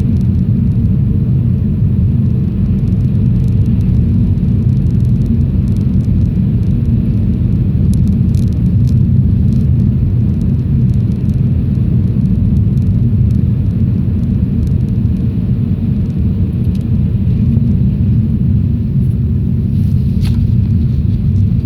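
Lada Vesta driving, a steady low rumble of road and engine noise, with a few faint clicks about a third of the way in and again near the end.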